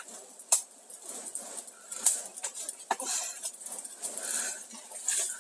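Irregular crackling and snapping of a small fire of dry leaves and twigs, mixed with rustling of undergrowth.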